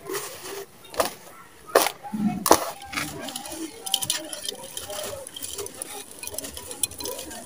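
Bare hands squeezing and crumbling dry, gritty soil, with three sharp crunches in the first couple of seconds. After that comes a handful of dry sandy dirt pouring into a terracotta pot, a fine pattering trickle.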